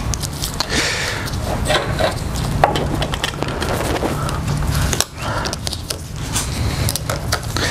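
A screwdriver working the screws at the fuel pump opening of a BMW K100 motorcycle's tank: small metal clicks and scrapes, scattered through, over a steady low hum.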